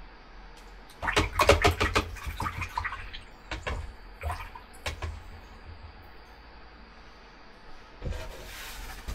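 A paintbrush swished and rattled in a jar of rinse water, knocking against the glass, followed by a few separate taps on the rim. Near the end, a short rustle of the watercolour paper being handled.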